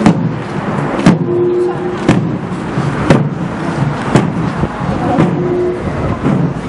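Ceremonial drum of the palace guard procession beaten in a steady march, one heavy beat about every second, with held pitched tones sounding between the beats.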